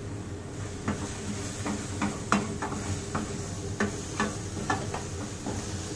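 Wooden spatula stirring spiced onion-tomato masala in a stainless steel pot, with irregular scrapes and light knocks against the metal, over a soft sizzle of the masala frying. A steady low hum runs underneath.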